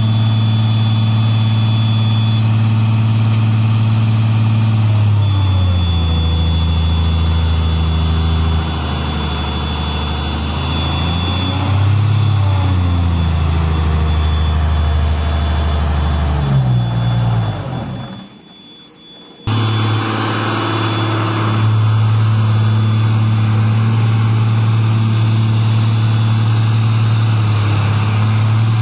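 Diesel engine of an articulated underground mining machine running as the machine drives. About five seconds in, the engine speed drops and wanders for around twelve seconds, then settles back to a steady note. A faint steady high whine runs alongside, and the sound nearly cuts out for about a second and a half around two-thirds of the way through.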